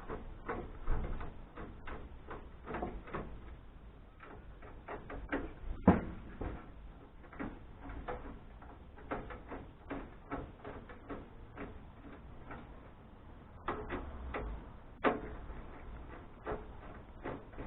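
Irregular clicks, taps and knocks of a screwdriver and small metal parts as screws are taken out of a desktop computer case to free the motherboard, with one louder knock about six seconds in.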